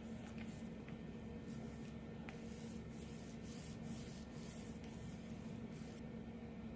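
Soft, repeated rubbing strokes of resin being worked into fiberglass cloth on a skateboard deck, about two strokes a second, stopping about six seconds in, over a steady low hum.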